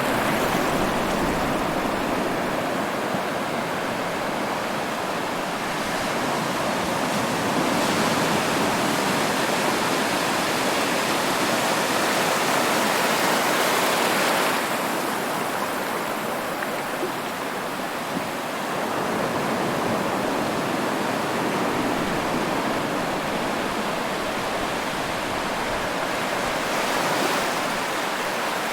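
Ocean surf: a continuous rush of waves breaking on the shore, swelling a few times as bigger waves come in.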